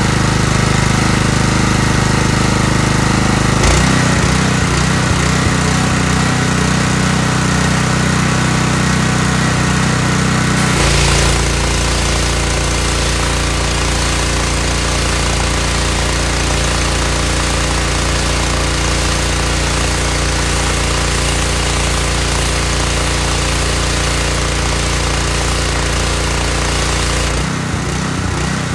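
Gas pressure washer's small engine running steadily, now on a newly replaced carburetor, with the wand spraying water onto concrete. Its note changes about 4 seconds in, again about 11 seconds in, and once more near the end.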